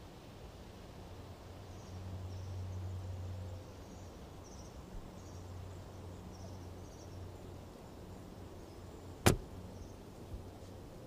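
Quiet outdoor ambience: a low hum that swells and fades, faint high chirps, and one sharp click about nine seconds in.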